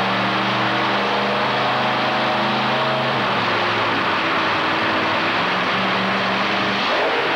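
Modified pulling truck's engine running loud while the truck sits at the line, a steady drone that drops in pitch a few seconds in and rises briefly near the end.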